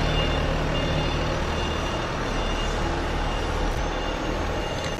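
Machinery running steadily in the background: a constant low hum under an even hiss, with no distinct knocks or clanks.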